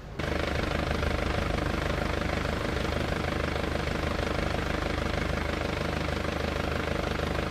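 Helicopter running steadily overhead, its rotor giving a fast, even flutter over a low engine hum; it cuts in suddenly right at the start.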